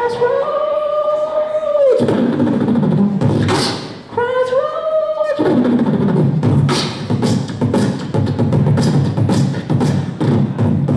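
Human beatboxing into a cupped handheld microphone. A held vocal note slides up and holds for about two seconds, then cuts off into a burst of beat. A second, shorter held note follows, and then a steady percussive beat of sharp clicks over low thumps takes over for the last five seconds.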